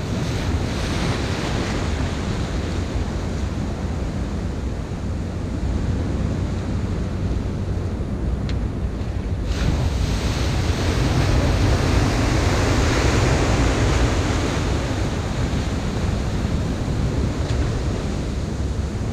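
Sea surf breaking and washing against a concrete breakwater, a steady rush of water. A bigger wave crests and breaks about halfway through, louder for a few seconds.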